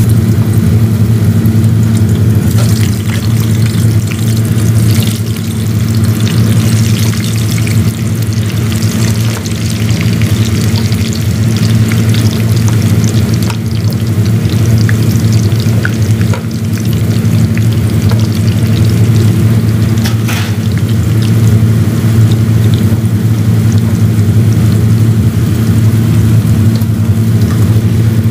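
Potato strips deep-frying in hot oil in a pan, a steady crackling sizzle with scattered pops. Under it runs a loud, steady low hum.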